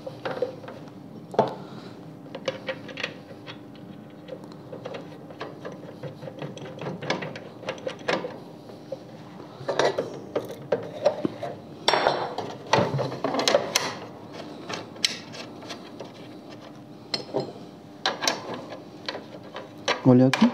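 Irregular metal clicks and knocks from hand-fitting an abrasive cut-off disc onto the arbor of a Makita miter saw: the flange and arbor bolt are turned and seated, and the blade guard is handled. The saw's motor is not running.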